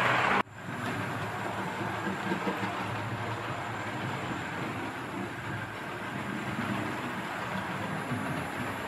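OO gauge model train, a Hornby Flying Scotsman locomotive, running around the track with a steady running noise of motor and wheels on rail. A louder passage cuts off abruptly about half a second in.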